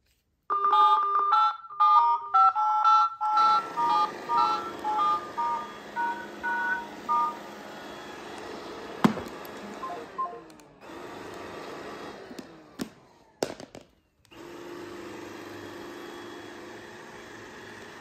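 A quick run of short two-tone touch-tone keypad beeps from a phone for the first several seconds. A robot vacuum cleaner runs under them with a steady noise that carries on, with a few clicks and a brief drop near the end.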